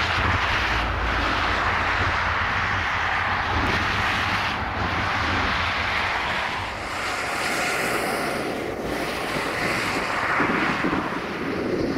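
Steady jet-engine noise from a Boeing 737-800's CFM56 turbofans, with wind rumbling on the microphone.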